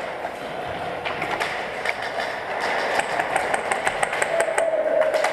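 Airsoft gunfire in an indoor arena: scattered sharp clicks at first, then a fast run of clicks, several a second, from about three seconds in.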